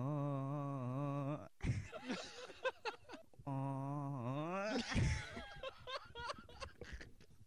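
A young man's voice into a microphone holding a long, slightly wavering hummed or sung note, then after a short pause a second note that rises and falls. Irregular laughter follows near the end.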